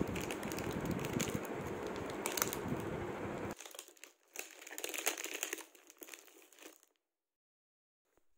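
Clear plastic film wrapped round a cardboard parcel crinkling and rustling as hands grip and pull it open. It is loudest for the first few seconds, drops sharply to a fainter rustle about three and a half seconds in, and stops about seven seconds in.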